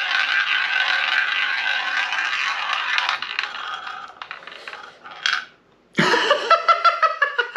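Ball spinning round a shot-glass roulette drinking-game wheel: a steady rolling rattle that fades about three seconds in, then scattered clicks as the ball bounces into a pocket and comes to rest. A voice follows near the end.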